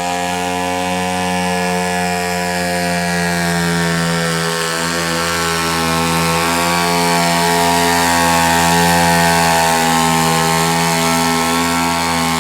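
Small garden tractor engine running at high revs under load, pulling a weight sled. Its pitch sags a little a few seconds in, then climbs back.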